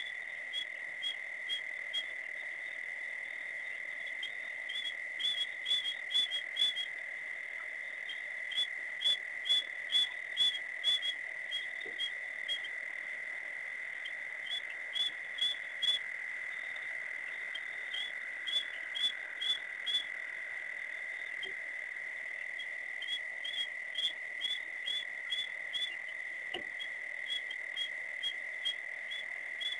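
Night chorus at a waterhole: a steady high drone with runs of short, high whistled calls, about three a second in bursts of several, typical of calling frogs.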